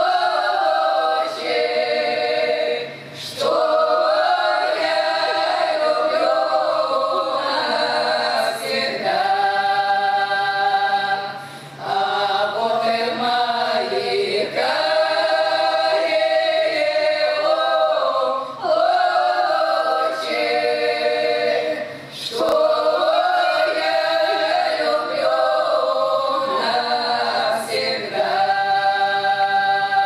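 Women's folk ensemble singing a Russian folk romance a cappella, in long held phrases with short pauses for breath every few seconds.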